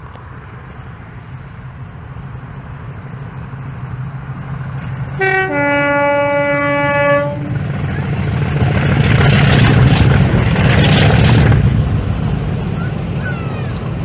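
English Electric Class 50 diesel locomotive, with its 16-cylinder engine running under power, approaches and passes close by. About five seconds in it sounds its two-tone horn, a short high note then a longer low one. The engine grows louder and is loudest as the locomotive passes beneath, then eases as the train goes by.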